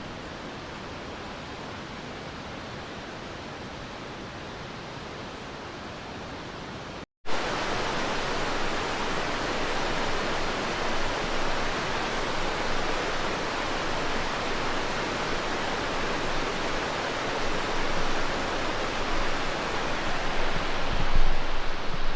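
Cascade River rushing: a steady hiss of flowing water, then after a hard cut about seven seconds in, a louder, fuller rush of the river close by.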